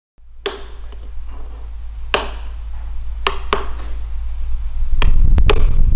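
Sharp hammer knocks on wood in a woodworking shop: a few spaced strikes, then several in quick succession about five seconds in. Under them runs a low steady drone that swells louder throughout.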